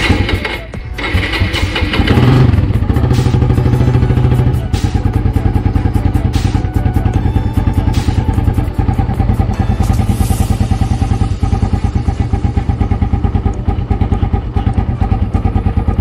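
Suzuki Raider R150's single-cylinder engine running: louder for about two seconds near the start, then settling into a steady, evenly pulsing idle.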